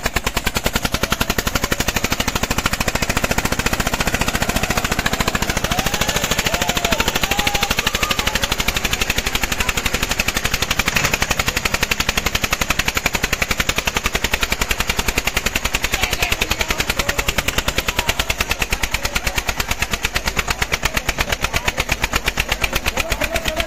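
Single-cylinder air-cooled Eicher 241 tractor diesel engine held at full throttle under heavy pulling load, giving a fast, even exhaust beat with no let-up.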